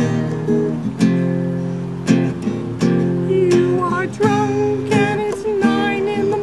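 Acoustic guitar strummed in chords, about one strum a second. From about halfway through, a voice sings long, wavering held notes over it.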